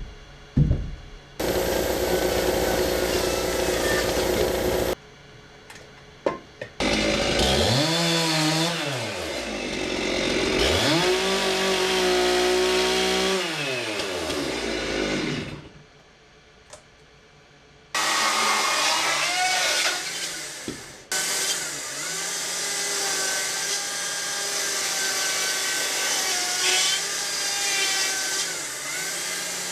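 Chainsaw carving wood, heard as a series of short clips that start and stop abruptly. The saw's engine revs up and down as it cuts.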